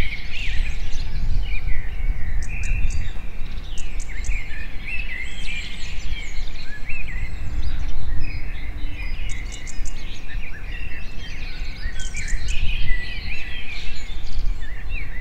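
Several songbirds singing and calling at once, many overlapping chirps and warbles, over a steady low rumble.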